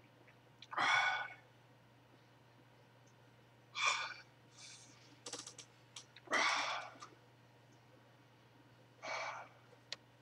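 A man breathing out hard through pursed lips: four heavy, sighing exhales a few seconds apart, from the burn of the ghost chili peppers he has just eaten.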